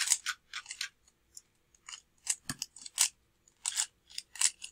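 Cyclone Boys 3x3 speed cube being turned quickly during a solve: about ten sharp plastic clacks and scrapes of the layers turning, in quick irregular groups.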